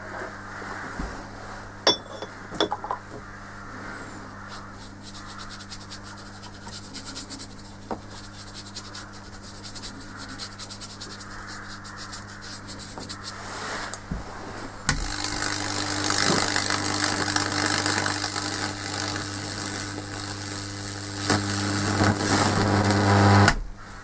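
High-voltage transformer humming steadily while electricity arcs across a wetted wooden bowl, crackling and sizzling as it burns fractal patterns into the wood. The crackle becomes much louder about 15 seconds in, and the hum and sizzle cut off suddenly near the end as the power goes off.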